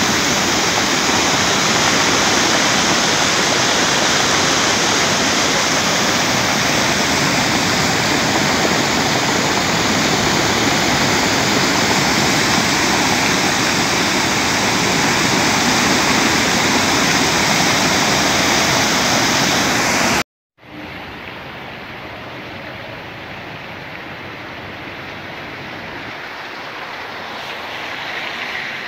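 Muddy floodwater rushing in a torrent, a loud steady wash of churning water. About twenty seconds in it breaks off at a cut, and a quieter, steady sound of floodwater running over a road follows.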